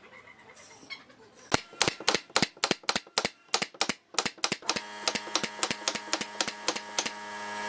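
Pneumatic brad nailer firing brads into pine boards in quick succession, a sharp snap about three times a second. It starts about a second and a half in. A steady hum comes in about two-thirds of the way through.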